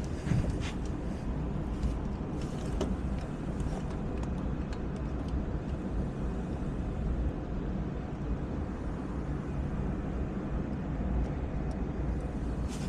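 Steady low background rumble with a few faint clicks and taps of small metal toy-train parts and a screw being handled during reassembly.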